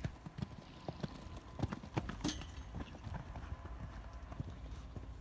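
Horse's hooves cantering on a sand arena footing, a run of hoofbeats that grow fainter after about three seconds as the horse moves away.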